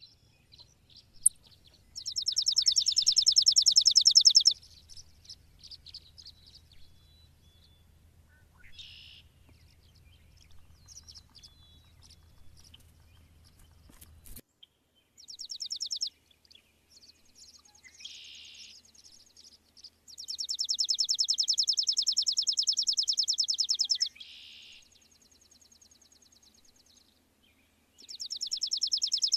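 Dusk insects, such as cicadas or crickets, calling in high, buzzing, rapidly pulsing trills. The trills come in bursts of a few seconds, four times, each swelling in at the start, with faint scattered chirps between them.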